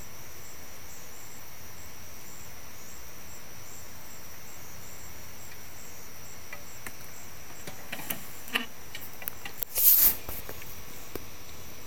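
Night crickets trilling steadily in a high, evenly pulsing chorus. About eight seconds in come a few scattered clicks, then a short, loud noisy burst near the end.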